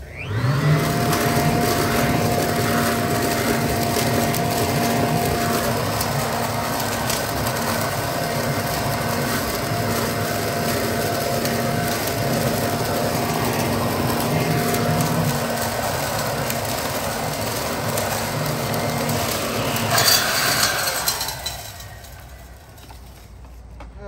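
Toro Ultra electric leaf blower vac running in vacuum mode, sucking dry leaves through its impeller into the bag. The motor spins up with a rising whine at the start and runs with a steady hum and whine under the rattle of leaves. About 20 seconds in it surges briefly, then is switched off and winds down.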